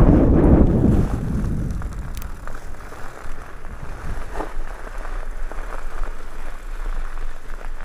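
Wind buffeting the microphone fades out over the first second or two, leaving a low rumble and scattered faint crunches and ticks from an e-mountain bike rolling slowly over gravel.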